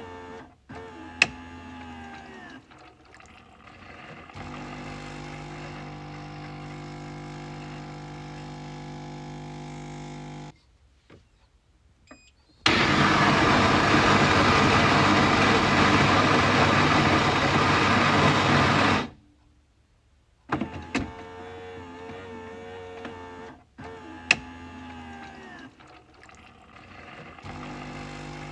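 Coffee machine running through its cycle. A humming motor with a sharp click about a second in gives way to a steady hum for about six seconds. After a brief pause comes a loud, even rushing noise for about six seconds that cuts off suddenly, then the humming and a second click return.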